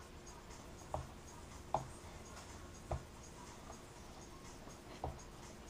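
Faint handling sounds from working on a foam model-plane wing: about five soft, short knocks and scrapes as a hand tool and wires are moved over the foam.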